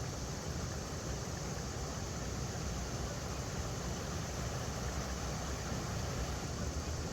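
River water flowing over rocks: a steady rushing with a deep rumble underneath.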